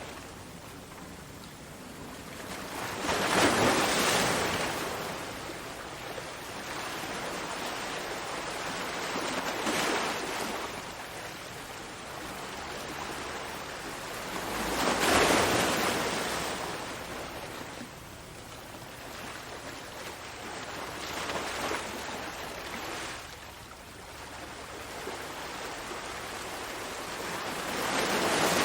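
Ocean waves breaking and washing up the shore, a steady rush that swells and ebbs. Three big surges come about twelve seconds apart, with smaller ones between them.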